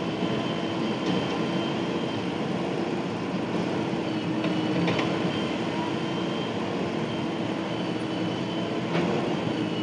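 Diesel engines of a backhoe loader and a farm tractor running steadily side by side, a constant drone with a few short knocks about a second in, near the middle and near the end.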